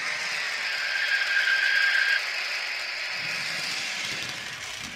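Sound decoder of an H0-scale ÖBB class 2068 diesel locomotive model playing its running sound through the model's small speakers as it drives past, with a high squeal from about one to two seconds in, the decoder's curve-squeal effect.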